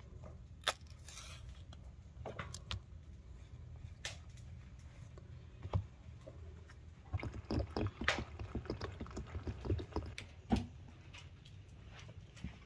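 Banana and orange peels handled and piled on a tabletop: scattered soft taps, scrapes and rustles, busiest from about seven to ten seconds in, over a low steady hum.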